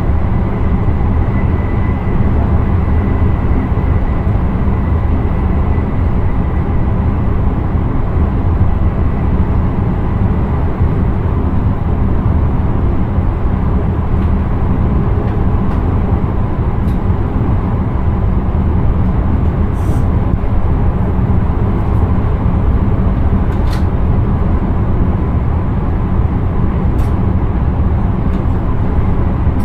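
Intercity train running at speed, heard from inside the driver's cab: a steady low rumble of the running gear on the track, with a few faint clicks in the second half.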